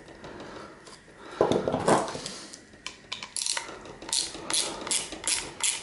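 Small ratcheting screwdriver backing a screw out of a plastic game cartridge casing. A brief scrape of handling comes about one and a half seconds in, then a run of sharp ratchet clicks, about three a second, through the second half.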